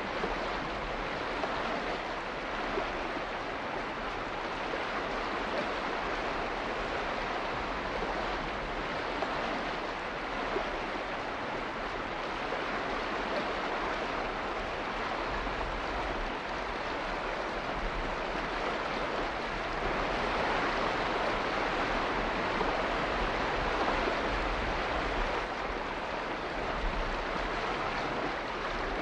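Steady rushing water, an even continuous hiss that swells a little about twenty seconds in.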